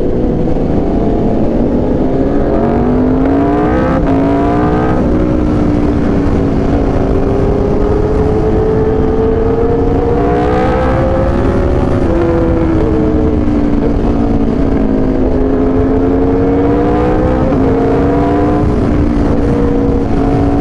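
Aprilia RSV4 1100 Factory's V4 engine through an SC Project exhaust, pulling up through the revs with a sharp drop near four seconds as it shifts gear, then running at a fairly steady pitch that rises and dips gently. Heavy wind rumble on the microphone sits under the engine throughout.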